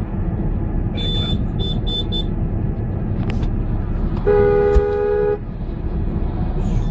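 Car horn sounding once for about a second, two close tones together, over a steady low rumble of engine and road noise.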